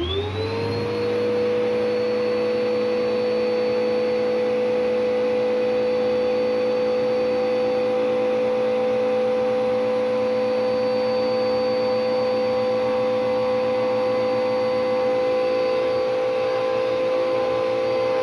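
Vacuum cleaner switched on, its motor whine rising in pitch for about a second as it spins up, then running steadily as its hose sucks the air out of a plastic trash bag of clothes. The tone shifts slightly near the end.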